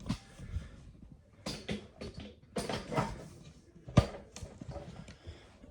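Scattered handling noises: light knocks, clicks and rustling as things are moved about, with one sharp knock about four seconds in.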